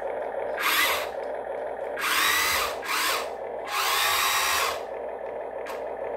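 Huina 1592 RC toy excavator's electric motors whirring in about four short bursts as the arm and bucket move. Each burst carries a whine that bends up and down in pitch.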